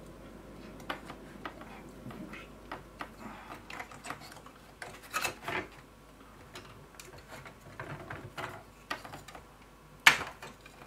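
Light clicks and knocks of 3D-printed plastic gears and frame pieces being handled and fitted together, scattered and irregular, with one sharp, loud click near the end.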